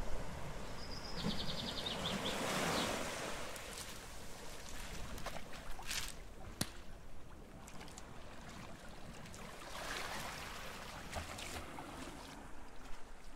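Ocean surf sound effect: waves washing in and out, swelling about two seconds in and again around ten seconds in, with a couple of sharp clicks around six seconds in.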